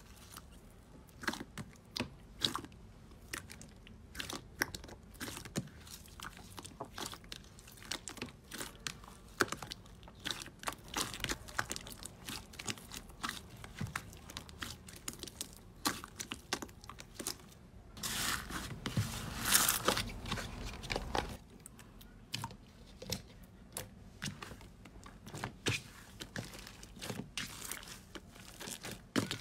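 Hands pressing, kneading and stretching slime, giving many small irregular crackling pops and squishes. A denser, louder run of crackling comes about two-thirds of the way through.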